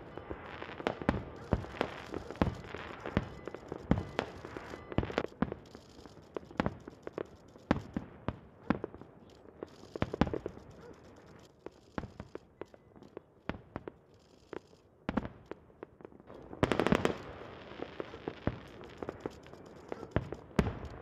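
Aerial fireworks bursting in an irregular string of bangs, with a dense run of rapid crackling bangs about three-quarters of the way through.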